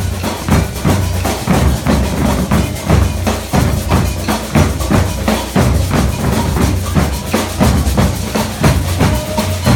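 Brazilian percussion ensemble drumming a steady rhythm in the batucada and maracatu style, deep bass drum beats under a dense run of sharper strokes.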